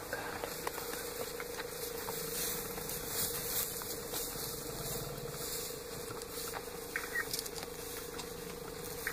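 Dry grass rustling and crackling as African elephants walk and feed through it, with scattered small snaps, over a steady hum.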